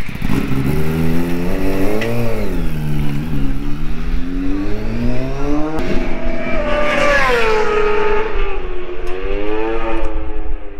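Racing motorcycle engines at high revs on the circuit, their pitch rising and falling through the gears. The loudest one passes about seven seconds in, its pitch dropping as it goes by.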